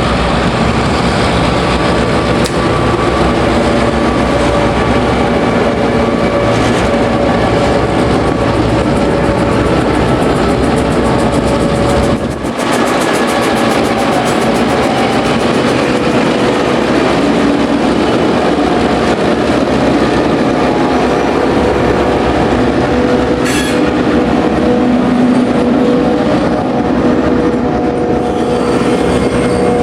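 A train running past close by, the steady noise of its wheels on the rails filling the whole span, with a brief dip about twelve seconds in.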